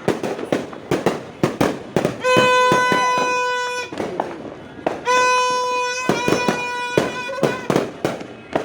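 Firecrackers and fireworks bursting in quick, uneven bangs. A horn blows long steady notes over them, twice for about a second and a half each and once more briefly.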